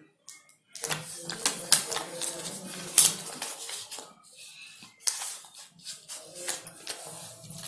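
Stiff chart paper being handled, folded and creased by hand: irregular rustles with many sharp little clicks.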